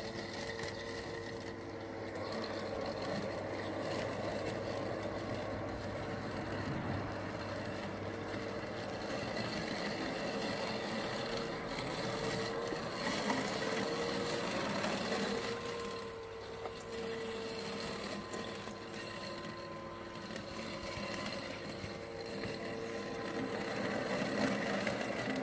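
Husqvarna Automower 315 robotic mower running over the lawn with its cutting blade spinning: a steady electric motor whine whose pitch wavers briefly about halfway through. The blade motor running is the sign that the mower has started its mowing cycle.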